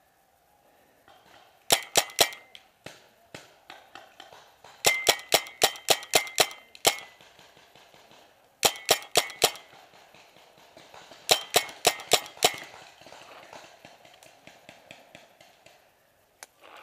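Paintball marker firing in four quick strings of sharp shots, several a second, each shot with a brief ring.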